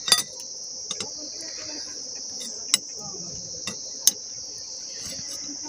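Steady high chirring of insects in the background, with a handful of sharp, irregularly spaced taps of a hand hammer on a khukuri blade over a small iron anvil.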